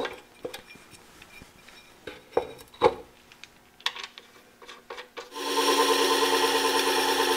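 Clicks and knocks of an abrasive disc being handled and fitted onto a benchtop horizontal lapping machine. About five seconds in, the machine starts and runs steadily, a hum with the rasping rub of a plane blade's back being lapped on the spinning finer-grit disc.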